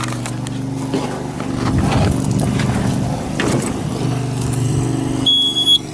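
A diesel engine idling steadily, with knocks and rustles of someone climbing into a skid steer cab. A short electronic beep sounds near the end.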